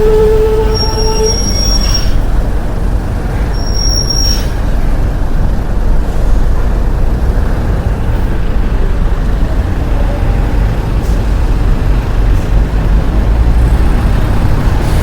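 Heavy truck running with a steady low rumble. A held pitched tone cuts off about a second in, and two brief high squeals sound in the first few seconds.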